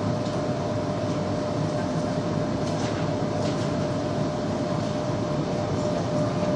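Metrovalencia train running between stations, heard from inside the carriage: a steady rumble with a constant whine, and a few faint clicks around the middle.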